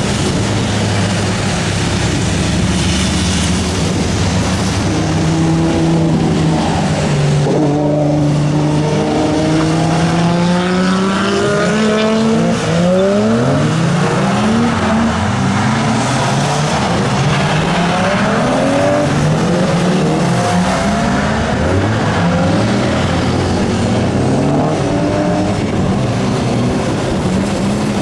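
Car engines on a racing circuit, revving up and dropping back again and again as they accelerate and shift, over steady road noise.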